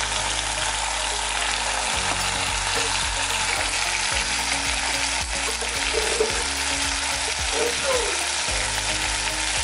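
Marinated whole chicken sizzling in hot oil in a cast-iron grill pan: a steady frying hiss.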